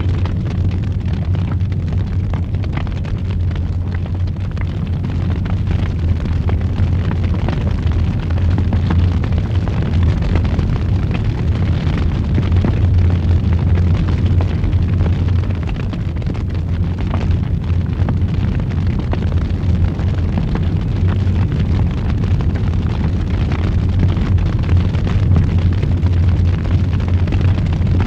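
Wood fire burning in a fireplace: a steady low roar with many small crackles and pops all through.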